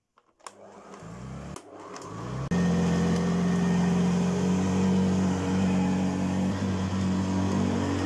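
1980 Hoover Senior Ranger U4014 upright vacuum cleaner switched on with a foot press on its hood: a click, then the motor spins up over about two seconds. It turns suddenly louder about two and a half seconds in and then runs steadily as the cleaner is pushed over carpet.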